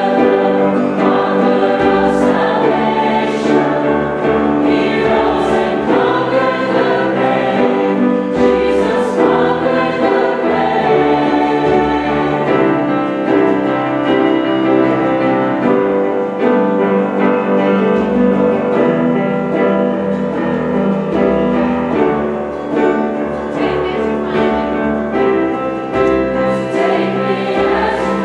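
Choir singing a hymn with the congregation, with instrumental accompaniment.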